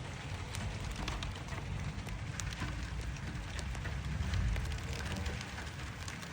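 Rain falling, with many separate drops striking close by as sharp little ticks over a steady hiss, and a low rumble underneath that swells about four seconds in.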